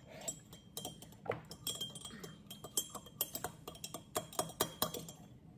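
Cutlery and glassware clinking against plates and dishes: a quick, irregular run of sharp clinks, some with a brief ring, coming thickest about three to five seconds in.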